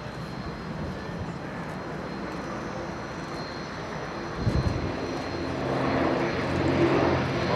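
Airbus A400M Atlas's four TP400 turboprop engines and propellers droning in flight, growing louder over the last few seconds as a steady propeller hum comes in. There is a brief low thud about halfway through.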